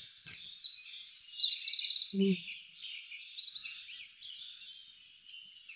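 Many birds chirping and calling at once, overlapping quick chirps and rapid trills that thin out and fade near the end. A short vocal sound cuts in about two seconds in.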